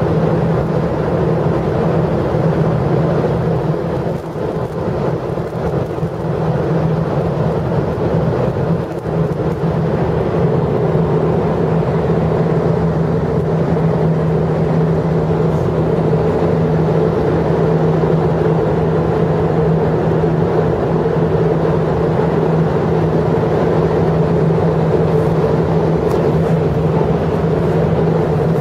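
Steady mechanical hum and rumble, holding one pitch throughout, over rough noise, with a brief dip about four seconds in.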